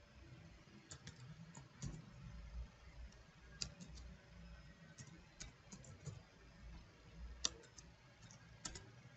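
Faint, irregular keystrokes on a computer keyboard, a few separate clicks a second, with one sharper click about seven and a half seconds in.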